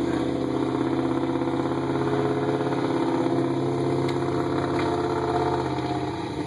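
Dodge pickup truck's engine running steadily at an even pitch while it tows a fallen tree branch, then easing off about six seconds in.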